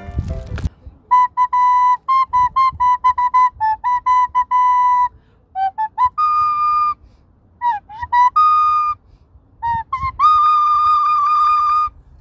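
Plastic recorder played solo: a run of quick, tongued notes at nearly one pitch, then a few short phrases with small slides in pitch, ending on one long held note about two seconds long.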